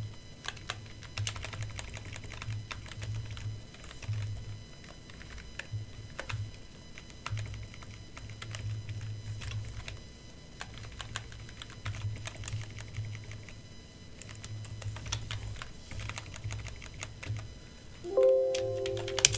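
Computer keyboard typing: irregular runs of keystrokes while a text file is edited in a terminal. A short humming tone sounds about a second before the end.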